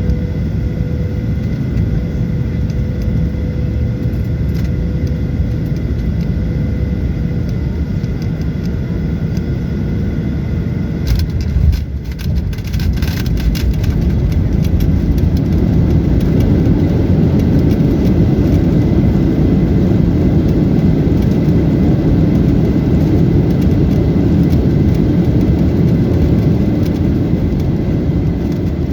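Steady rumble of a moving vehicle, with a faint steady whine in the first part. Just after a brief louder moment about twelve seconds in, the rumble grows louder and continues.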